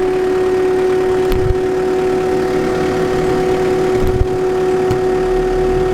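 JCB Midi CX backhoe's diesel engine running, with a steady high-pitched whine from the rear hydraulic section, a noise whose cause the owner cannot explain. Two brief low knocks come about a second and a half in and about four seconds in.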